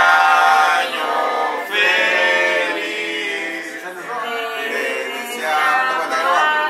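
A group of people singing together without instruments, holding long notes that change every second or two.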